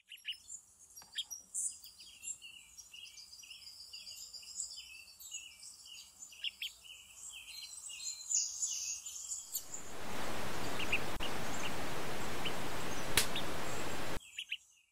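Songbirds chirping in a quick series of short, repeated calls. About ten seconds in, a loud, steady hiss of television static takes over and then cuts off suddenly near the end.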